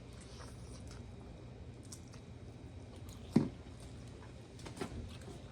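People eating at close range: quiet wet chewing and mouth sounds, with scattered small clicks and one sharper, louder knock about three and a half seconds in, over a faint steady low hum.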